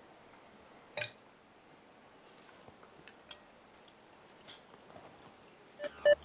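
A few scattered clinks of cutlery against dishes at a meal table, the loudest about a second in and another about four and a half seconds in, over quiet room tone. Music with a repeating beat starts near the end.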